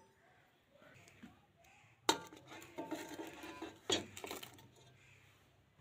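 Knocks and clinks of a wire trivet stand against a large metal cooking pot: two sharp hits, about two and four seconds in, the first with a brief metallic ring.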